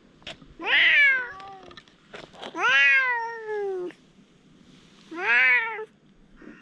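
A cat meowing three times, drawn-out meows that rise and then fall in pitch; the middle one is the longest.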